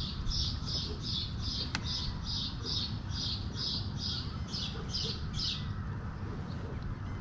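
A bird calling: a rapid series of short, high chirps, about three to four a second, which stops about five and a half seconds in.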